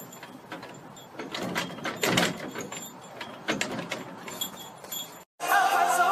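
Light irregular clattering and rattling with faint, high tinkling tones, like a small bell or metal fittings. About five seconds in it cuts off suddenly and pop music with singing starts.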